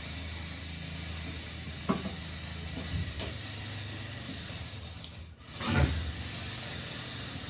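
Mouth sounds of chewing crunchy jhal muri (spiced puffed rice), with a few distinct crunches, the loudest near the end, over a steady low hum.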